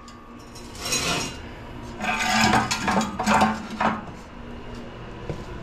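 Intermittent metallic clatter and knocks in a few short bunches, about a second in and again for a couple of seconds in the middle.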